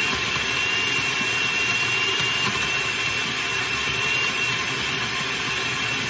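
Countertop blender running steadily, blending a smoothie of frozen banana and frozen mango with spinach and juice, with a steady high whine over the motor noise.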